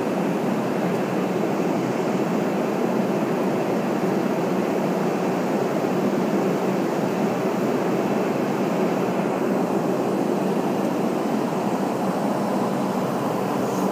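Steady cabin noise inside an MD-83 airliner in flight: rushing air and the drone of its Pratt & Whitney JT8D engines, even and unbroken throughout.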